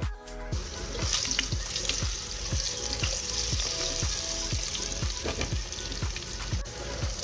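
Potato chunks sizzling in hot oil in a nonstick pan, the hiss starting about half a second in. Background music with a steady beat plays under it.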